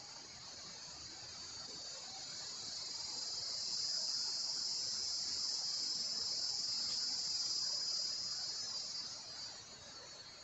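A high, shrill insect drone that grows louder over the first few seconds, holds steady, then fades away near the end.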